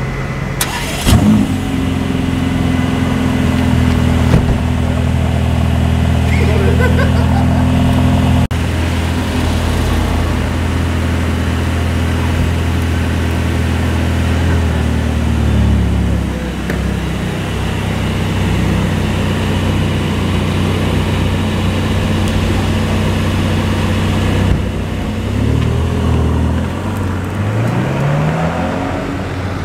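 Mercedes-AMG GT Black Series twin-turbo V8 starting up with a loud bark about a second in, then idling high. The idle settles a little lower about halfway through. Near the end the engine note rises in several short steps as the car pulls away.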